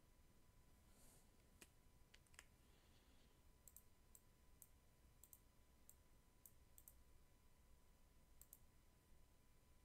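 Faint computer mouse clicks, about a dozen scattered irregularly, several in quick pairs, over near-silent room tone with a faint steady high tone.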